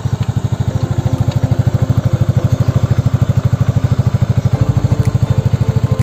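Yamaha Mio scooter's single-cylinder four-stroke engine idling with a steady, rapid exhaust beat, through a muffler being bored out (bobok) for a deeper, bassier sound.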